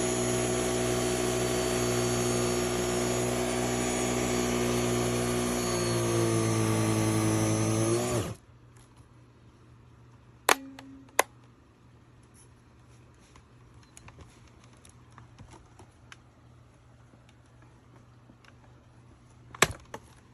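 Kenmore BU3040 two-motor upright vacuum cleaner running with a steady motor whine, then switched off about eight seconds in, cutting out quickly. A few sharp clicks follow: two close together a couple of seconds later and a loud one near the end.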